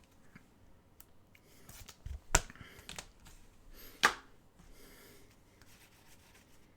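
Trading cards being handled on a table: faint rubbing and shuffling, with two sharp taps about two and a half and four seconds in.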